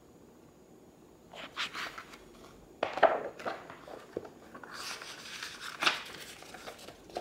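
Pages of a paperback book being handled and turned, with papery rustles and flaps, the sharpest about three seconds in and a longer riffle of pages near the end.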